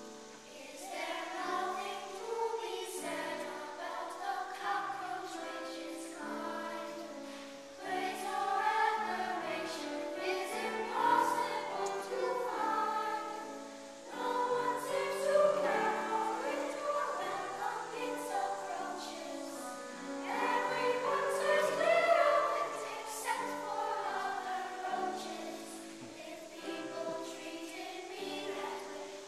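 A children's choir singing, in phrases that swell and break off every few seconds.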